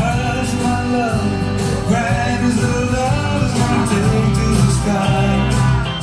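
Country-style song playing: a singing voice over guitar and a steady beat.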